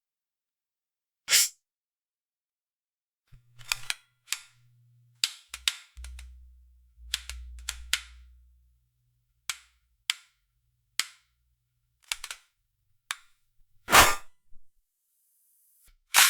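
Paper customs form being torn in a series of short, sharp rips, irregularly spaced, with a clustered run in the middle and the loudest rip about 14 s in. A faint low hum sits under some of the middle rips.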